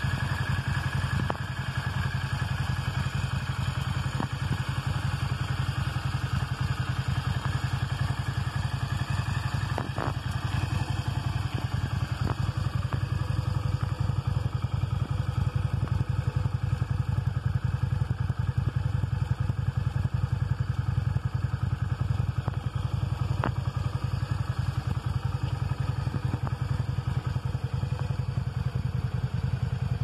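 Yamaha Dragstar 650's air-cooled V-twin idling steadily through its stock chrome exhaust pipes, a mild, even beat that sounds like a sewing machine.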